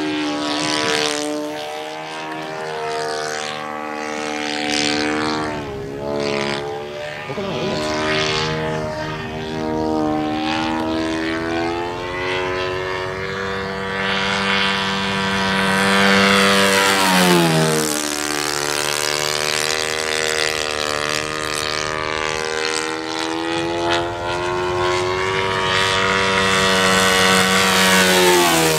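ENYA R155-4C four-stroke model engine and propeller of a Multiplex Buffalo RC plane running in flight, the engine note wandering up and down in pitch. About 17 seconds in it sweeps past and the pitch drops sharply.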